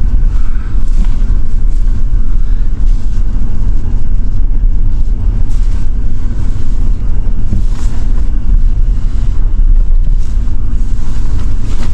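Ford F-150 pickup's engine running with a steady low rumble while the truck sits in reverse on its newly installed C6 automatic transmission, the gear engaged and holding.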